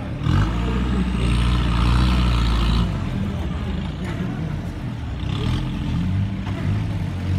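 Off-road trial buggy's engine revving hard for about two and a half seconds as it works up a steep dirt and rock slope, then dropping back to a lower, uneven run, with a shorter rise about two-thirds of the way in.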